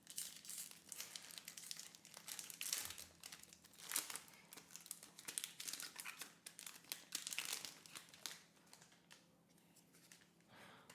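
Pokémon booster pack's foil wrapper crinkling and tearing as it is opened by hand, in irregular bursts that die down about eight seconds in.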